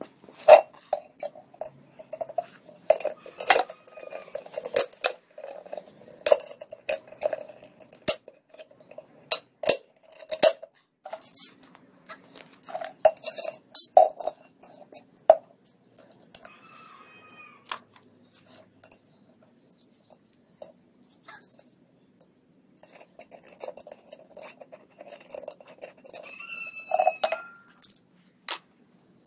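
A kettle being handled and worked on: repeated clinks and knocks, many with a short ring, coming in clusters with a few pauses, and a couple of brief squeaks.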